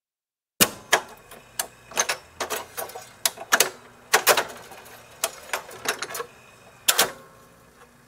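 Jukebox mechanism working: an irregular run of sharp metallic clicks and clunks that starts about half a second in, with the loudest clunks at the start and again near the end.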